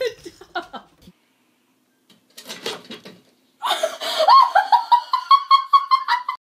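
A person laughing in high, quick repeated bursts, loud, starting about three and a half seconds in and cut off abruptly at the end. Before it, a brief voice and a short scuffling noise.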